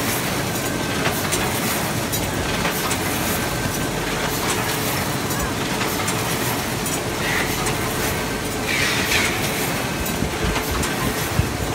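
Fangbang ZD-QFP20 square-bottom paper bag machine running at production speed: a steady mechanical running noise with repeated light clicks and a constant hum. A short hiss comes twice in the later part.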